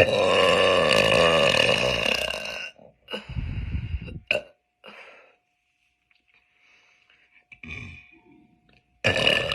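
Girls burping loudly: one long burp of nearly three seconds, a shorter one soon after it, a couple of fainter sounds, and another long burp starting near the end.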